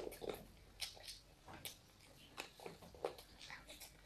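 Faint eating sounds: a child chewing a mouthful of rice and curry with wet smacks while his fingers squish and mix rice on a metal plate, a few irregular soft clicks and smacks.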